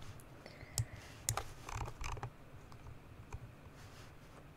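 A few faint, scattered clicks of computer keys, with a short cluster of taps about two seconds in.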